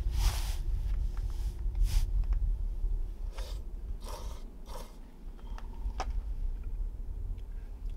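Crunchy food being bitten and chewed: about half a dozen short, crisp crunches in the first five seconds, then only faint ticks, over a low steady background rumble.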